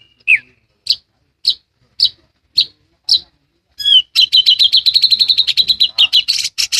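Small pet songbird calling: five single sharp chirps about half a second apart, then a fast, continuous twittering trill from about four seconds in.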